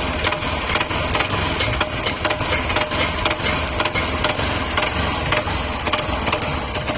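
Hero XPulse motorcycle's single-cylinder engine running with a continuous rattling knock, an abnormal engine noise that the mechanic suspects comes from the balancer.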